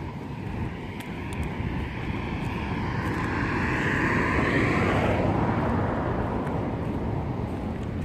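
A vehicle passes by: its sound swells, peaks about four to five seconds in with a slight downward slide in pitch, then fades away. A low rumble of wind on the microphone runs underneath.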